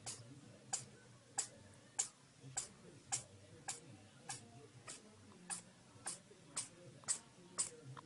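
Faint, steady ticking at an even pace, a little under two sharp ticks a second.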